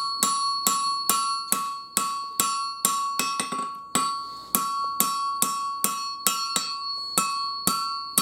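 Hammer blows on hot 5160 steel on an anvil, about three a second, each strike followed by the anvil's bright metallic ring, as the knife's handle end is drawn out and tapered thinner.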